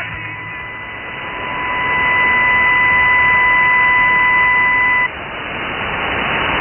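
Shortwave radio reception in upper sideband: a steady beep-like tone over static hiss, holding for about five seconds and cutting off abruptly, then static alone.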